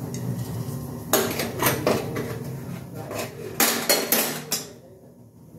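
Metal kitchen utensils and a pan clinking and clattering: a quick run of sharp knocks with short metallic ringing from about one second in until near the end.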